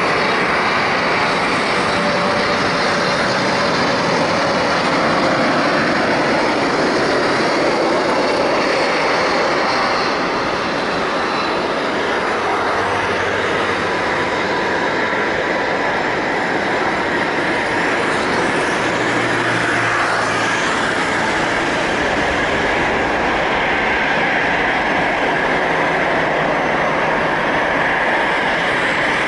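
Boeing 747-400 freighter's four jet engines heard during its landing, a loud steady rush of jet noise that barely changes throughout.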